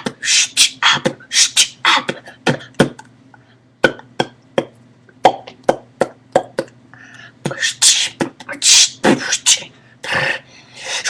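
Mouth beatboxing a freestyle beat: quick sharp kick- and snare-like hits with hissing hi-hat sounds, thinning to sparser clicks in the middle and picking up again after.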